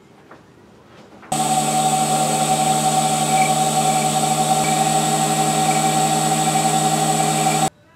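After a quiet second or so of light handling clicks, an Emco Unimat SL lathe's motor switches on abruptly and runs at a steady pitch while a hand file is held against the spinning brass shaft coupler, then cuts off suddenly near the end.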